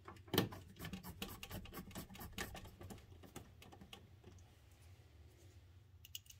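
Quick run of small clicks and taps as screws and the screwdriver are handled against the CD player's sheet-metal case, densest in the first three seconds with one sharper knock about half a second in, then sparse until a couple of clicks near the end.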